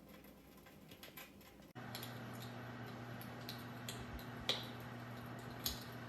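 MSELTOS fireplace crackler sound box playing a fire-crackling track through its speaker: irregular sharp pops and snaps over a soft hiss. Nearly two seconds in, the background hiss steps up suddenly and a low steady hum joins it.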